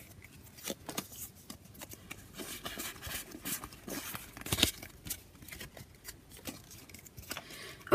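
Pokémon trading cards sliding and flicking against each other in the hands as cards are moved to the back of a pack: quiet soft clicks and rustles, with one sharper snap about four and a half seconds in.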